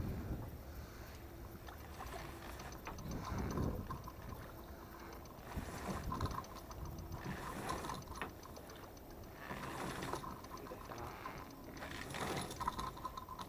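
Hand-tool work on metal parts: clicking and rattling in uneven bursts.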